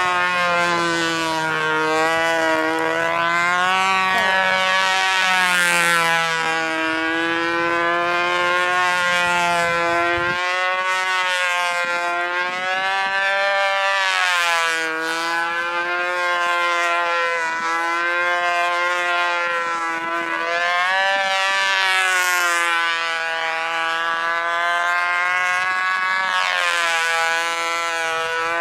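Control-line model aeroplane's two-stroke glow engine running flat out as the plane flies laps, running smoothly. Its high whine rises and falls in pitch and volume about every five seconds as the plane circles past.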